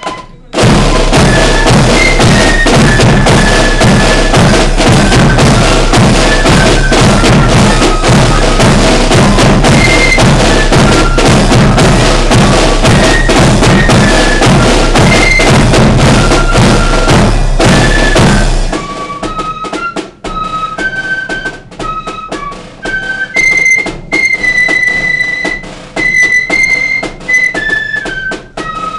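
Flute band playing: side drums beaten hard and dense beneath flutes carrying a high melody, very loud close to the drums. About 18 seconds in, the drums stop and the flutes play on alone.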